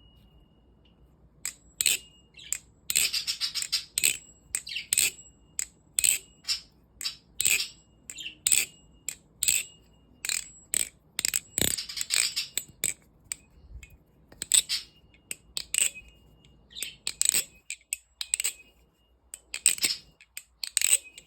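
Squid Industries Squidtrainer balisong trainer being flipped for a sound test: repeated sharp metallic clacks as the handles swing around and slap shut against the blade and each other, some in quick clusters, several leaving a faint high ring.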